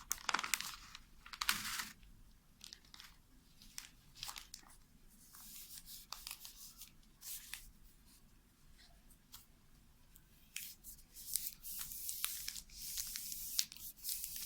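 Self-adhesive sticker film being peeled from its backing and pressed onto a broom handle: irregular crackling and tearing rasps, louder near the start and again in the last few seconds.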